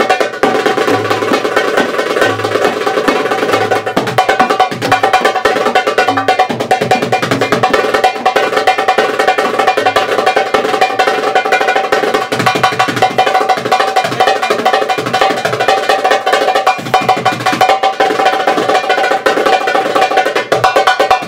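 Fast percussion solo on a set of Egyptian darbukas (goblet drums): dense rapid strokes and rolls over recurring deep strokes. It cuts off suddenly at the end.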